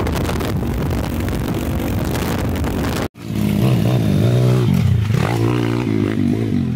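Heavy wind rush on the microphone over a motorbike engine while riding on the bike. After a sudden cut, a pit bike's small engine revs up and down as it is ridden over a dirt track.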